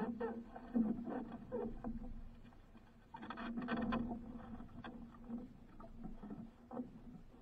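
A handline being worked at the bow of a wooden outrigger canoe: irregular knocks and rustles against the hull, busiest about three seconds in, over water lapping at the boat, with a low hum that comes and goes.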